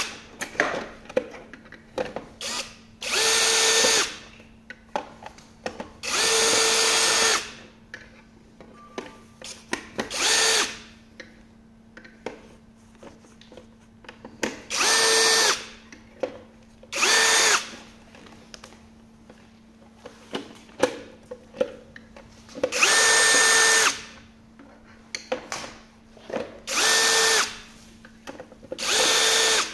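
Cordless drill-driver running in about eight short runs, each a steady whine lasting half a second to two seconds, as it backs screws out of a hoverboard's plastic shell. Small clicks and taps come between the runs as the bit is moved from screw to screw.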